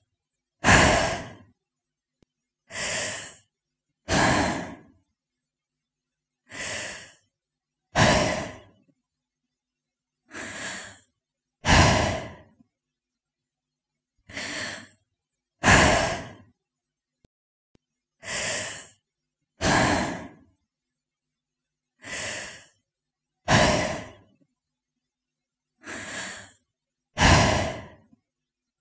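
A woman breathing in slow, deliberate breaths, each under a second long with silence between. They come in pairs, a softer breath followed by a louder one, about every four seconds, seven times.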